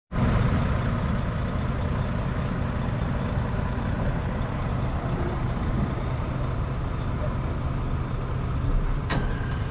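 Heavy delivery truck's engine running steadily with a low rumble, and a single sharp click about nine seconds in.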